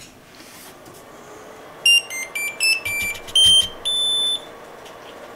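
Anycubic Kobra 3D printer's buzzer playing its power-on jingle: a quick run of about seven high electronic beeps at changing pitches, the last one held longest, starting about two seconds in. A faint steady hum runs underneath.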